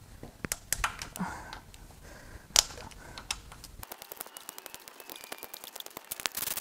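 Hand ratchet on the camshaft cap bolts of a Mazda MZR 2.3L cylinder head. A few scattered sharp clicks and knocks, the loudest about two and a half seconds in, then from about four seconds in a fast, even run of ratchet clicks as the handle is swung back and forth.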